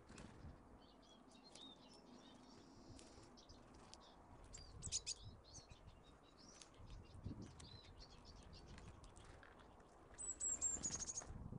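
Small garden songbirds (tits and finches) at a seed feeder chirping and calling in short high notes, with a quick run of high, slightly falling notes near the end. A few soft low thumps come and go.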